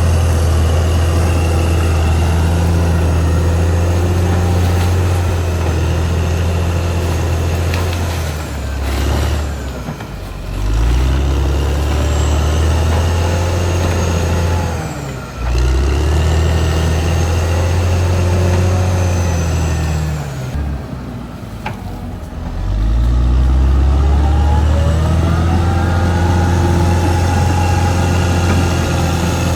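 Caterpillar D6R XL bulldozer's diesel engine running hard, loud and steady. Its revs drop and climb back up three times: about a third of the way in, halfway, and about two-thirds in.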